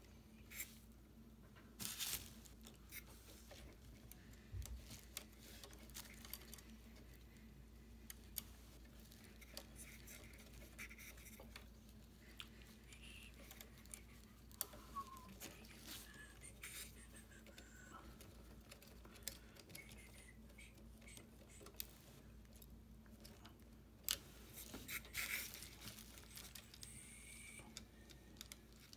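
Faint, scattered clicks and scrapes of a small hex wrench and plastic and metal parts being handled while screws are fitted on a radio-control truck's axle assembly, over a steady low hum.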